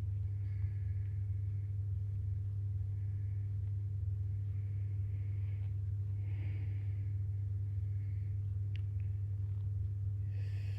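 A steady low hum, with faint soft scraping from steel knitting needles and yarn as stitches are worked, and one light click near the end.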